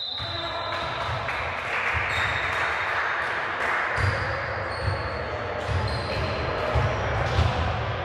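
Indoor basketball game on a hardwood court: a ball bouncing and dribbling with repeated thuds, short high sneaker squeaks, and voices, all echoing in a large gym hall.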